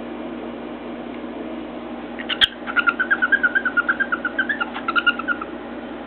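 Cockatiel giving a quick run of short, even chirps, about eight a second for nearly three seconds, opened by a single sharp tap.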